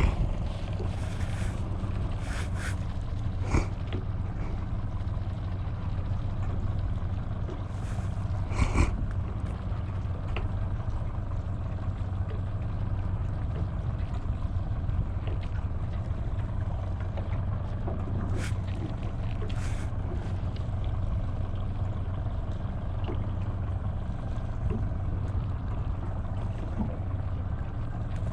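Small fishing boat's engine running steadily with a low hum, and a few short knocks on the hull or deck.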